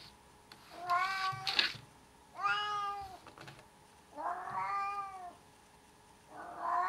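Siamese kitten meowing: four drawn-out, whining meows with short pauses between them, the last one starting near the end.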